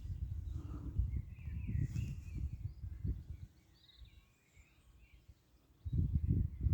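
Birds chirping over a low, gusty rumble on the microphone. The rumble drops away for about two seconds past the middle, then comes back louder near the end.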